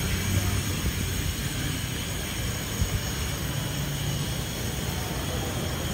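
Road traffic: a steady low rumble of car engines and tyres passing, with engine hum rising and fading now and then.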